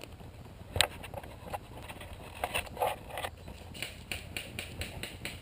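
Footsteps of a player moving through woodland undergrowth, settling into a regular pace of about three to four steps a second near the end, with one sharp snap about a second in.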